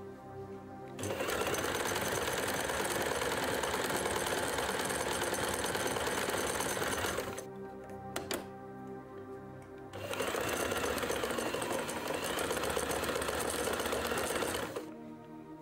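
Electric household sewing machine running at speed in two stretches of about six and five seconds, sewing test stitches. Between them come a few sharp clicks as the stitch selector dial is turned. Background music plays throughout.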